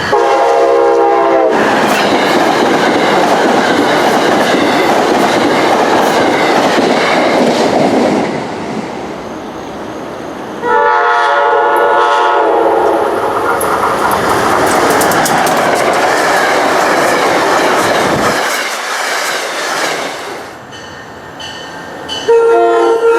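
Nathan K5LA five-chime air horn on a SEPTA Regional Rail train, sounding at the start, again about eleven seconds in, and once more near the end. Between the horn calls a train passes close by, loud and steady, its wheels clattering on the rails.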